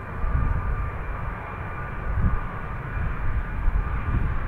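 Boeing 757-200 freighter's Rolls-Royce RB211-535 turbofans on final approach: a steady whine over a low, uneven rumble.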